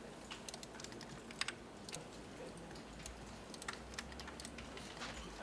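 Computer keyboard and mouse clicking: scattered, irregular light taps and clicks as the software is worked, over a faint low room hum.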